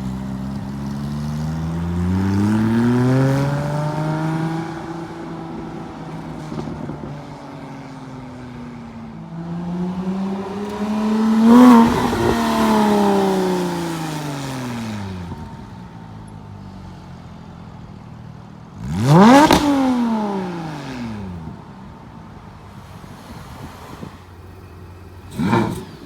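Performance cars driving past one after another, about four in all: each engine note climbs as the car approaches and then drops in pitch as it goes by. The loudest, fastest passes come about halfway and two-thirds through, and a brief one comes near the end.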